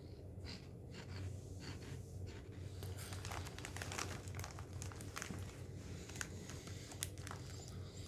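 Foil snack bag crinkling in short scattered crackles as a hand digs into it, mixed with the chewing of puffed cheese balls.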